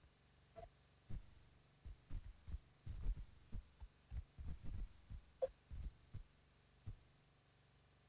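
Wind buffeting an outdoor nest-camera microphone: faint, irregular low thumps and rumbles. Two brief faint high tones, about half a second in and again past five seconds.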